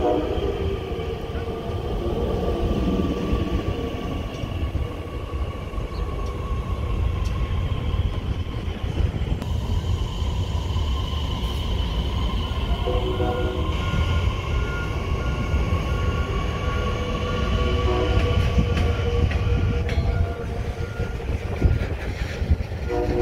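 Metra Electric bilevel electric multiple-unit train moving along the platform, with a low rumble of wheels on rail and a steady whine. From about halfway, a short beep repeats about twice a second for several seconds.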